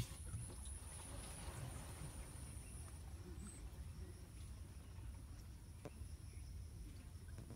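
Faint steady high-pitched drone of insects over a low rumble, with one knock at the very start.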